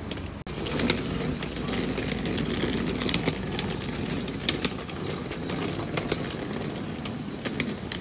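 Roadside street noise: a steady low rumble of vehicle engines, with scattered footsteps and clicks from walking. The sound drops out briefly about half a second in.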